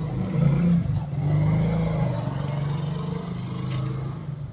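A motor vehicle's engine running with a low, steady hum, swelling about a second in and easing off toward the end.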